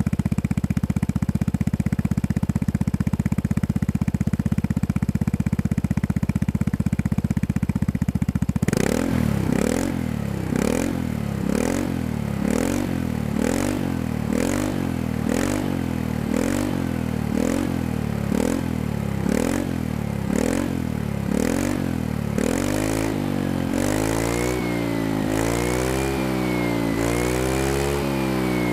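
Vespa Sprint 150 scooter's single-cylinder engine running through a Shijiro Baby Monster aftermarket exhaust with its dB killer fitted. It idles steadily, then about nine seconds in it is blipped in short revs, roughly one a second. Near the end it is revved higher in longer rising and falling sweeps.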